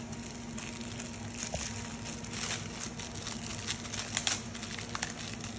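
Plastic packaging crinkling and crackling in irregular bursts as a small toy package is opened and handled, with the sharpest crackles about four seconds in.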